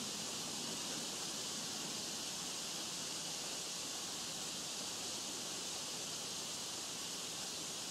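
A steady, even hiss with no distinct events and no thunder.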